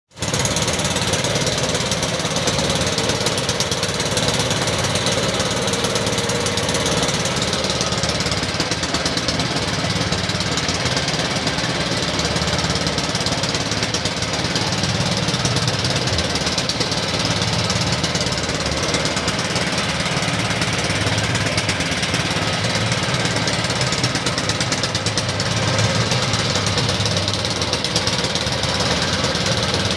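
A small fishing boat's inboard engine running steadily at a low, even speed, with a rapid knocking beat, while the boat works the trap line.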